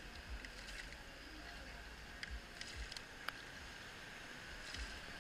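Faint scattered clicks and light knocks of a plastic water bottle being handled against the plastic hull of a kayak, the sharpest knock a little past the middle.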